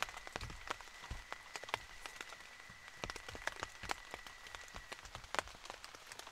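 Rain tapping on the tent fabric in irregular drops, mixed with a knife cutting bell peppers on a plate. A faint steady high whine runs underneath.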